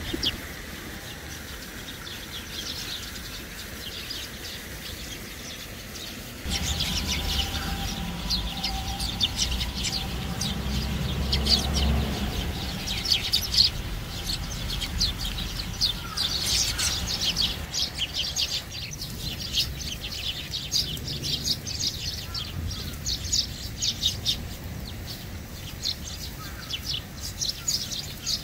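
A flock of Eurasian tree sparrows chirping: only a few chirps at first, then a dense run of short, high chirps from several seconds in. A low rumble runs under the chirping for about ten seconds in the middle.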